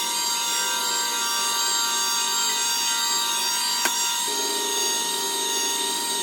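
Heat gun running steadily while it heats a Kydex sheet, its whine sped up by fast-forward playback, with a single short click about four seconds in.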